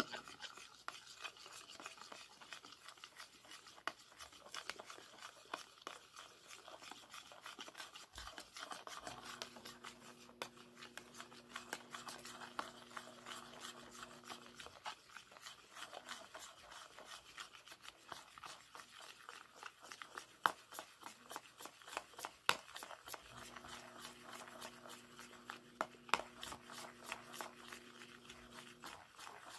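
Metal fork stirring and scraping thick shampoo in a bowl, a quiet run of irregular scrapes and sharp clicks against the bowl. A low steady hum comes in twice in the background for several seconds at a time.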